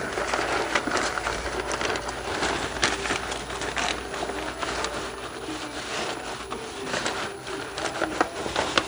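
Paper rustling and crinkling, with many short clicks and taps, as manual pages and loose papers are handled and shuffled.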